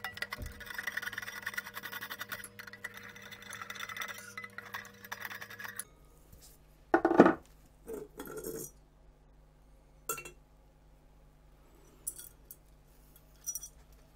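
Metal clinking and scraping as a perforated metal shield is worked loose inside an electron-microscope column and lifted out. Steady scraping and rattling for the first six seconds gives way to a few separate clinks, the loudest about seven seconds in.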